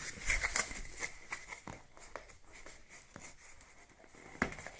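Packaging of a boxed blood pressure kit being handled: scattered rustles and light knocks, busiest in the first second, with a sharper knock near the end.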